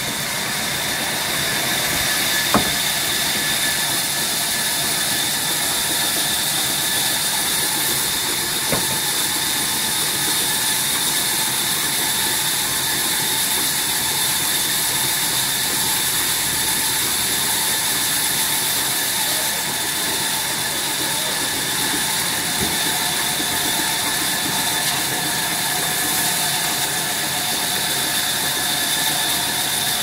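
Sawmill band saw running steadily and ripping a jackfruit wood plank, a constant cutting noise with a high whine over it. Two sharp knocks come within the first ten seconds.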